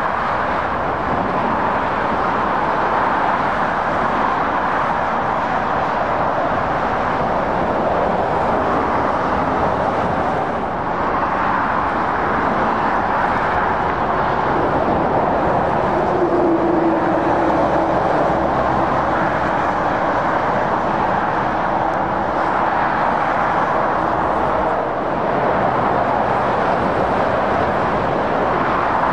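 Steady motorway traffic: the tyre and engine noise of lorries and cars passing at speed, swelling and easing slightly as vehicles go by, with a brief hum about halfway through.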